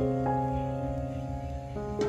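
Slow, gentle instrumental background music with held notes.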